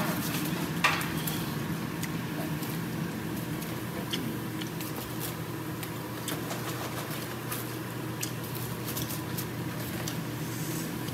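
Steady low machine hum in a small room, with scattered light clicks and clinks of chopsticks and dishes, one sharper clink about a second in.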